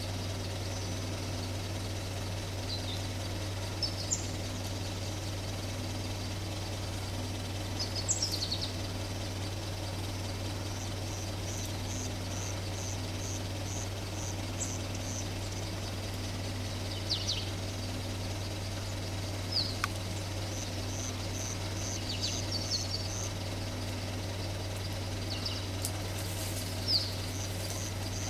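Scattered short bird chirps and calls, including runs of quick repeated high notes, over a steady low hum.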